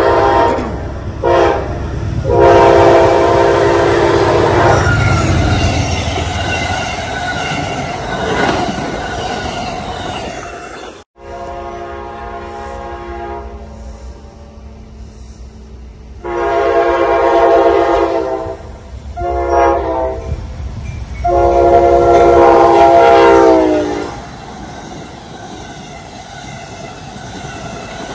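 Diesel locomotive horn blowing a series of long and short blasts for grade crossings, in two groups. The last long blast falls in pitch as the locomotive passes close by. Then passenger cars roll past with a clickety-clack of wheels on the rails.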